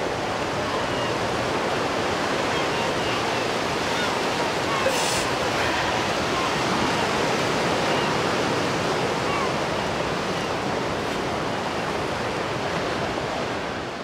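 Sea surf washing against a concrete tetrapod breakwater, with wind: a steady wash of noise. A brief click sounds about five seconds in.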